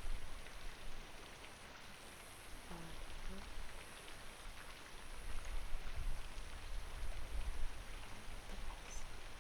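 Rain falling steadily, with scattered drop ticks over a low rumble.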